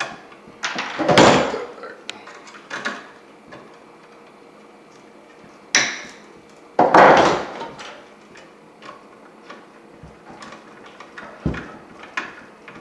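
Electrical tape pulled off the roll to wrap a wire-nut splice: two noisy pulls about a second long, near the start and about seven seconds in, with small clicks and knocks of handling between.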